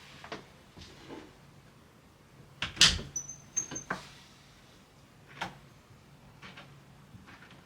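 Clicks and knocks of a newly installed interior door handle set being worked, with its latch snapping, a brief high squeak and the door knocking. The loudest cluster of clicks comes about three seconds in.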